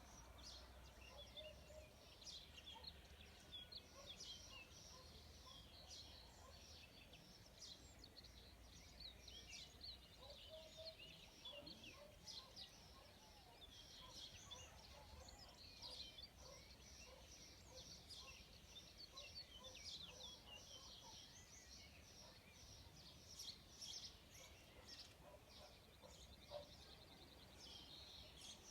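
Faint outdoor chorus of small songbirds, many short chirps and trills overlapping without pause, over a low steady rumble.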